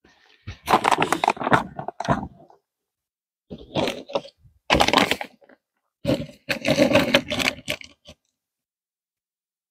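Hard plastic parts of a compost tumbler crunching and creaking as they are forced together, in three bursts of a second or two each.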